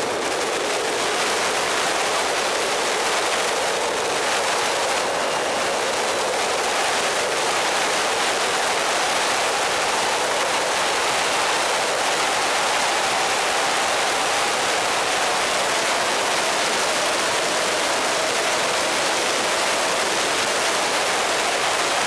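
Steady rush of wind and road noise on an electric racing motorcycle at track speed, with no engine sound and a faint whine that wavers slightly in pitch.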